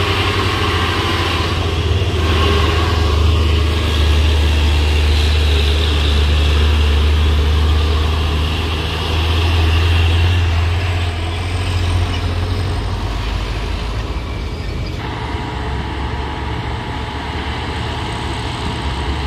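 Heavy truck engine running under load: a deep, steady rumble that eases off about eleven seconds in and continues more quietly.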